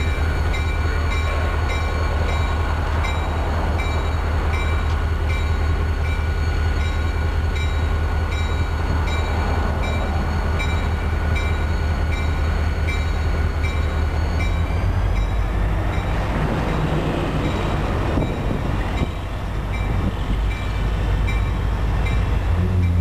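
Norfolk Southern diesel locomotive running as it moves slowly with the track-geometry train, a steady low engine drone with a quick, regular high ringing repeating over it. The sound shifts about two-thirds of the way through, with a short dip near the end.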